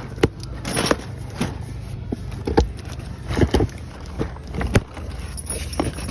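A cardboard case of carded Hot Wheels die-cast cars being opened and handled: irregular sharp clacks and rustles as the packaged cars knock against each other and the box.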